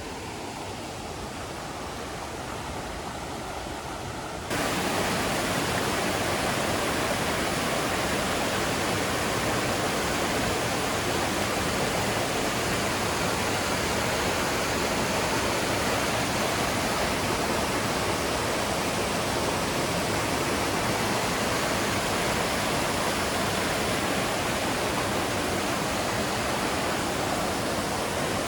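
Steady rush of water from a waterfall in a jungle stream. It jumps suddenly louder and fuller about four and a half seconds in, then holds steady.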